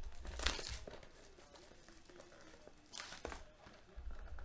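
Foil trading-card packs and box packaging crinkling as they are handled and pulled from an opened Panini Infinity box, louder twice: about half a second in and about three seconds in.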